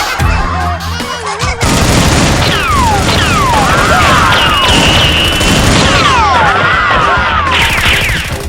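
Background music, then from about a second and a half in, a loud layer of edited gunfire-and-explosion sound effects with repeated falling whistles.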